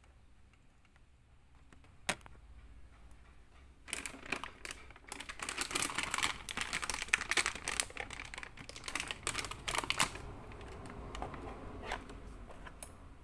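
Clear plastic wrapping around an action figure crinkling and crackling as it is handled: a single click about two seconds in, then a dense run of rapid crackles and clicks for about six seconds that dies down near the end.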